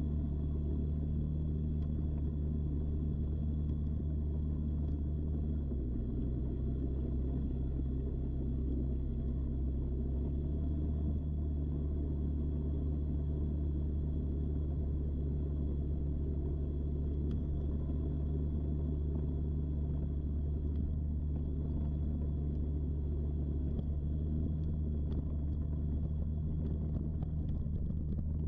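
Off-road bike's engine running steadily while riding, a low rumble under steady road noise. The engine note drops a little about six seconds in and rises back about four seconds later.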